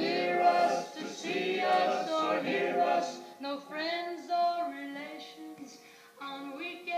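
Vocal music of several layered singing voices, like a small choir, playing from the sound curtain's hanging discs, with no deep bass. It grows softer about five seconds in, where a single held note remains under the voices.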